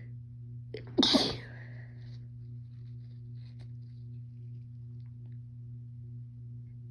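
A woman sneezes once, loudly and suddenly, about a second in, over a steady low electrical hum.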